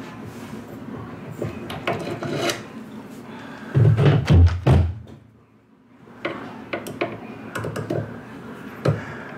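Hand-tool handling noise: small clicks and taps of needle-nose pliers, a screwdriver and screws against a model airplane engine mount, with a cluster of low thumps about four seconds in.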